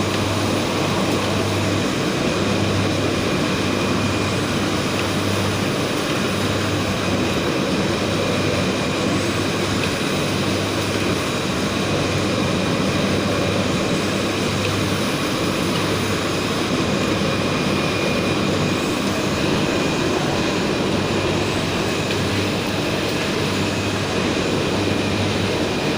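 Spot UV coating machine and its UV dryer running: a steady mechanical whir with a few thin high tones and a low hum that comes and goes every second or two.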